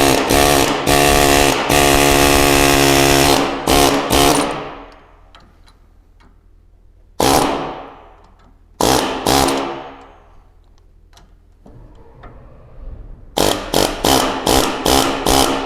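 Pneumatic air chisel hammering into a worn rubber anti-roll bar bushing to split it: one long run of about four seconds, two short bursts around seven and nine seconds in, then a string of quick short bursts near the end.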